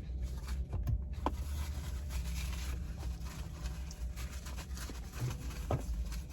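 A person eating a sandwich: quiet chewing with a few faint clicks and small mouth noises, over a steady low hum.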